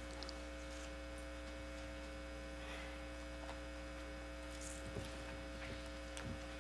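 Steady electrical mains hum from the hall's microphone and sound system, with a few faint soft ticks of papers being handled at the lectern near the end.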